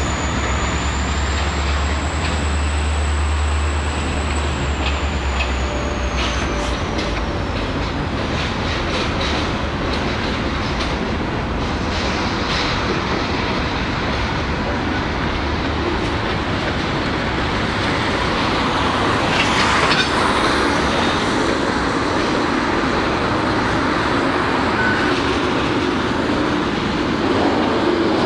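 Freight cars of a slow-moving train rolling over yard track, with clicks from the wheels crossing rail joints and a continuous rail rumble. A strong low rumble fades after about six seconds. A thin, high wheel squeal slides lower and dies away by about eight seconds, and there is a louder grinding burst about twenty seconds in.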